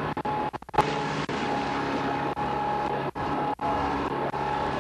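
A boat engine running at a steady speed, a constant drone with a fixed whine. It drops out for an instant a few times.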